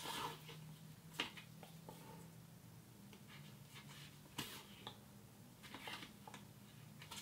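Leather being hand-stitched: thread drawn through the stitching holes in short, faint rasps at irregular intervals of a second or so, over a low steady hum.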